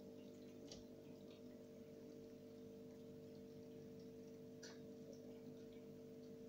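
Near silence with a faint steady hum, as from an aquarium's pump or filter, and two soft clicks: one about a second in, one about two-thirds of the way through.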